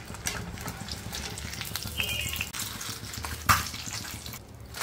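Samosas deep-frying in medium-hot oil: a steady sizzle with small crackles. There is one sharp click about three and a half seconds in.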